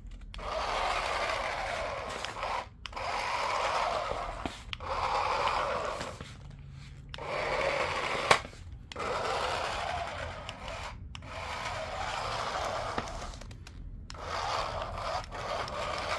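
The small electric motor and plastic gears of a cheap toy remote-control car whirring in about seven runs of one to two and a half seconds, stopping briefly between them, with a sharp click about eight seconds in.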